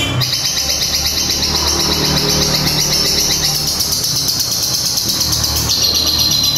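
A caged long-tailed shrike (cendet) sings a long, very fast, high chattering trill that imitates a lovebird's 'ngekek' call. The trill shifts in pattern near the end.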